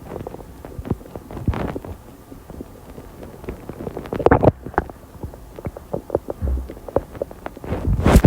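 Stomach gurgling during digestion after soda and a meal: irregular runs of short gurgles and pops, with a louder cluster about four seconds in and another near the end.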